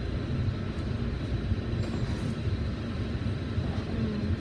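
Volvo B9TL double-decker bus's six-cylinder diesel engine pulling slowly away from a stop. It is heard from inside the upper deck as a steady low rumble, with a faint steady high tone over it.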